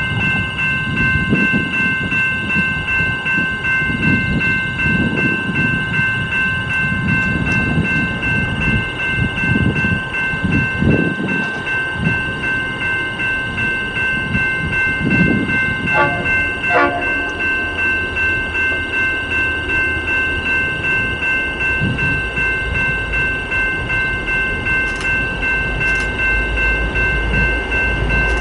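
A steady chord of high tones held throughout, over gusts of wind buffeting the microphone, with a short cluster of clicks about sixteen seconds in. Near the end a deep rumble grows as the diesel-hauled freight train approaches.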